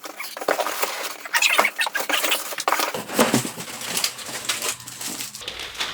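Packaging being pulled open by hand: a rapid, irregular run of rustles, crinkles and small taps, growing fuller about halfway through.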